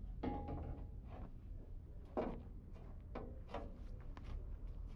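Scattered light clicks and knocks, about a dozen, over a steady low hum.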